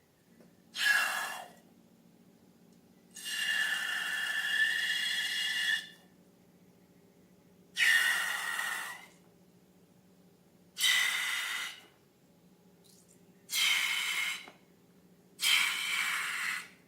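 Six bursts of air hissing, each about one to three seconds long, with a faint whistling tone in the hiss; the longest comes about three seconds in.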